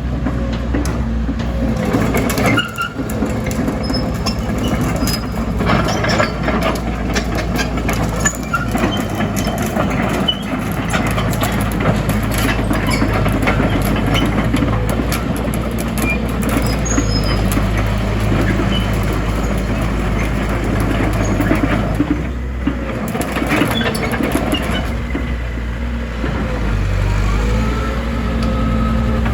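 Komatsu PC130-7 excavator working: its diesel engine runs continuously, the engine note dipping and rising as the hydraulics load it, with scattered clanks and short squeals from the working machine.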